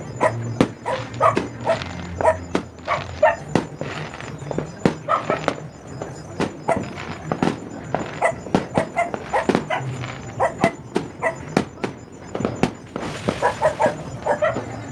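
A dog barking over and over, mixed with many sharp cracks from exploding fireworks, and a short hiss near the end.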